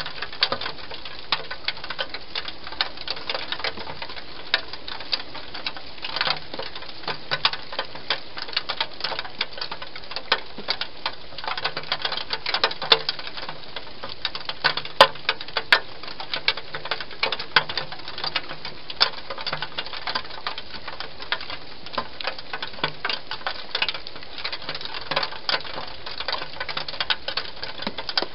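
Wild hedgehog chewing food, a fast, irregular run of crunching clicks with no let-up.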